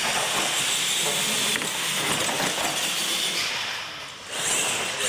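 Radio-controlled monster trucks running on a concrete floor: electric motors and tyres making a steady, noisy whir that dips briefly about four seconds in.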